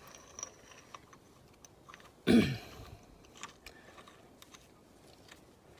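Faint light metallic ticks and clicks as the new crank pulley bolt is turned in by hand, with one short, loud cough-like noise from the person a little over two seconds in, falling in pitch.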